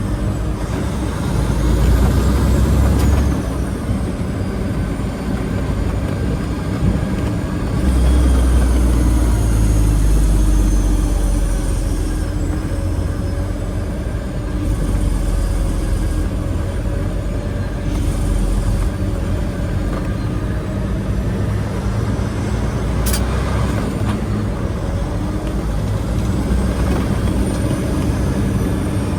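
Semi truck's diesel engine running, louder near the start and again from about eight to twelve seconds in, with a single sharp click about twenty-three seconds in.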